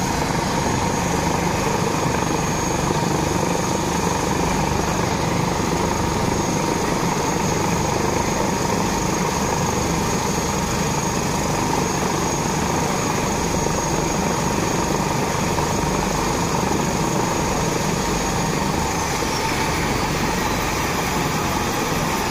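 Airbus H145 twin-turbine helicopter running on the ground with its rotor turning: a steady mix of rotor and turbine noise with a high whine running through it.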